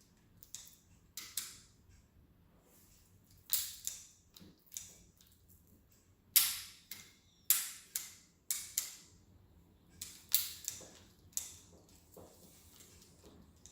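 About a dozen irregular, sharp metallic clicks and clacks, each with a short ringing tail, as hands work bicycle parts such as the gear shifter and brake on an e-bike.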